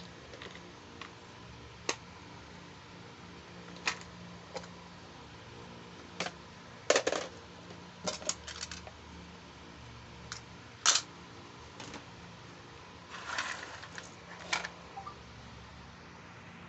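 Small plastic toy pieces and packaging being handled during an unboxing: scattered light clicks and taps a second or two apart, some in quick little clusters, the loudest about seven seconds in, over a faint steady hum.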